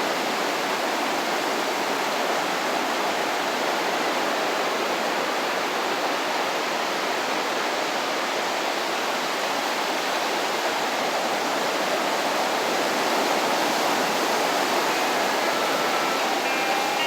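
Steady wash of small waves breaking on a beach shore on a calm sea, an even, continuous surf noise. Faint guitar notes come in near the end.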